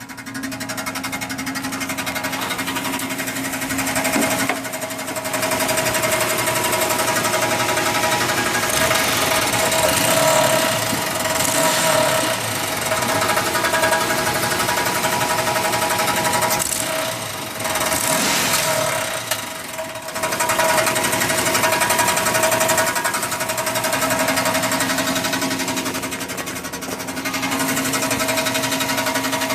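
A 1996 Chevrolet Impala SS with its LT1 V8 pulling under throttle, with a rapid mechanical rattle over the engine and road noise. The rattle comes on with acceleration and eases off when coasting; its cause is unknown, and the driver thinks it comes from underneath the car.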